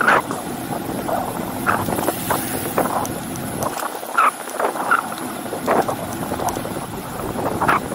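Riding noise of a bicycle picked up by a handlebar-mounted camera: steady wind rush on the microphone, with irregular short rattles and knocks.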